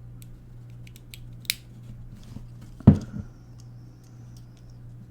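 Small plastic and metal clicks from pulling the copper coil off a quartz clock movement, with one sharp snap about three seconds in.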